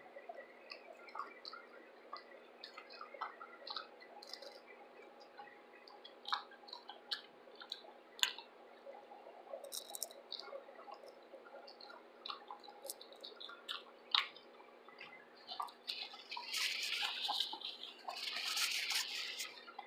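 Close-up chewing of fried shrimp: scattered short wet mouth clicks and smacks. Near the end, a few seconds of paper napkin rustling as hands are wiped, louder than the chewing.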